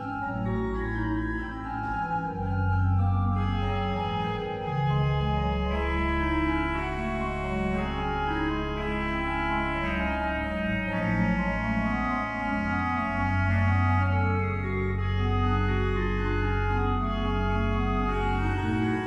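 Smits pipe organ of the Sint Petrus church in Oirschot playing a slow passage of held chords over long, deep pedal notes, the chords changing about every second or two.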